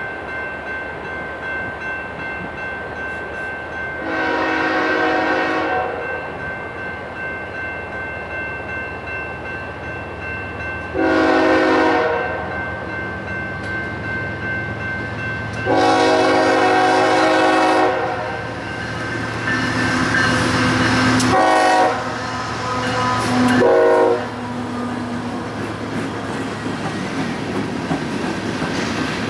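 Approaching Norfolk Southern freight locomotive sounding its horn in a series of blasts: a long one about four seconds in, a shorter one, another long one, then two short ones near the end, over diesel engine rumble that builds as the train nears.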